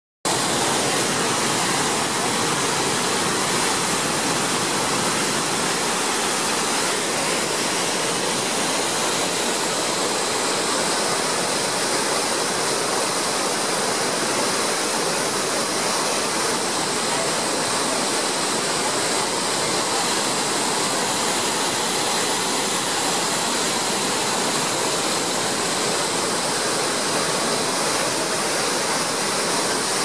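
Davis Falls, a large waterfall plunging into a narrow rock gorge: a loud, steady rush of falling water.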